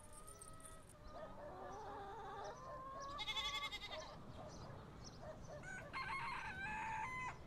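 Chickens clucking, with a rooster crowing, faint. There is a quick rapidly pulsed call about three seconds in and a longer call near the end.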